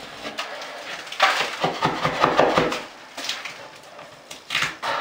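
Drywall knife scraping painted popcorn texture off a drywall ceiling: a burst of rapid scratchy strokes lasting about a second and a half, then a couple of shorter scrapes near the end.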